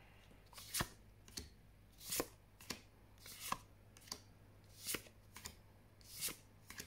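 Magic: The Gathering cards from a just-opened booster pack being flipped through one at a time. Each card slid off the stack gives a short swish or snap, about ten in all, roughly every two-thirds of a second.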